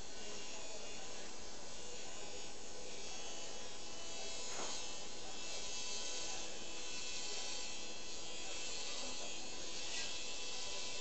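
Motorized arthroscopic burr running steadily with a continuous buzz as it shaves bone from the femoral head and neck.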